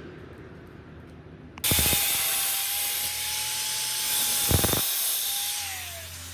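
Angle grinder cutting through thin galvanized sheet steel: it starts abruptly about a second and a half in, a steady motor whine under a loud hiss of the disc on the metal, with a low bump about three seconds later. Near the end the whine drops in pitch.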